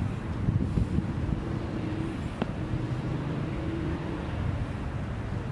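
Low, steady rumble of road traffic with a faint engine hum wavering through it, and a single sharp click about halfway through.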